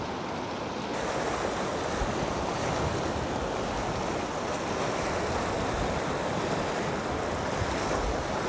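Steady rushing of a fast mountain stream running high and muddy, its current churning white over the rocks; the rush steps up about a second in.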